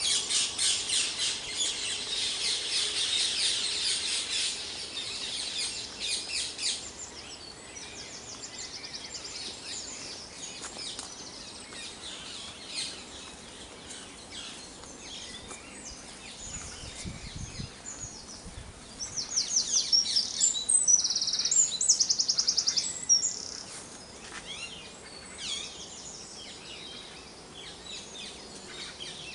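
Dawn chorus of several songbirds singing over one another, with rapid high trills. The song is dense for the first several seconds, thins to scattered calls, then a loud, fast trill comes in about twenty seconds in.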